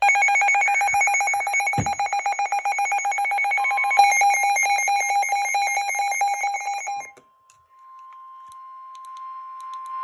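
Weather alert radio's electronic alarm sounding a fast pulsing trill for about seven seconds, signalling an incoming warning. It stops suddenly, leaving the steady single-pitch NOAA Weather Radio 1050 Hz warning alert tone, which grows louder near the end.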